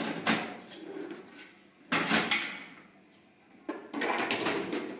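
Metal kitchenware clattering and scraping at a gas stove as a metal kettle is handled on the burner grate, in three short bursts with sudden starts: one near the start, one about two seconds in and a longer one near the end.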